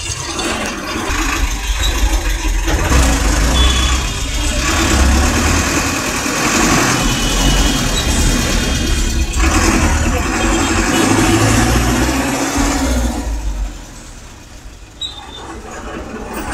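Busy road traffic heard from a moving vehicle: engines of auto-rickshaws, buses and other vehicles running close by, with the noise of the ride. The noise is loud and steady and drops briefly near the end.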